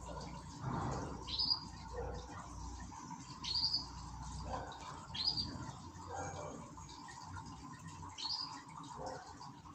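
Canaries giving short high chirp calls, four in all at uneven intervals, each dropping quickly in pitch, over a faint steady background tone.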